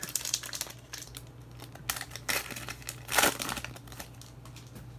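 A baseball card pack's wrapper being torn open and crinkled by hand: irregular crackling, loudest about two and three seconds in.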